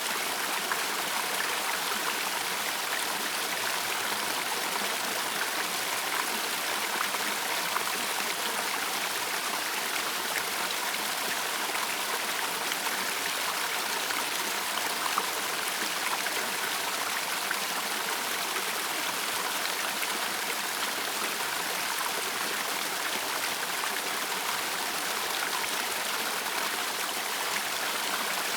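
Close-up of a small waterfall on a woodland stream, water spilling down a granite slab: steady splashing and trickling with a fine patter of individual drops.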